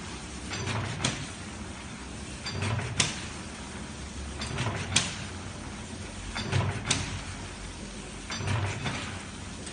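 HDK-300 cut-to-length machine for corrugated paper working through its cutting cycle. Each cycle is a short motor whir ending in a sharp clack as a length is cut off, repeating about every two seconds, five times in all.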